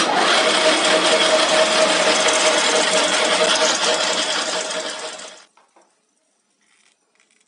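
Metal lathe running with a workpiece spinning in its chuck, a steady mechanical rush with a constant whine, then winding down and stopping about five seconds in as the spindle is shut off.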